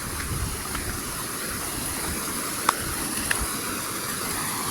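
Steady rushing of flowing river water, with two sharp clicks a little past halfway.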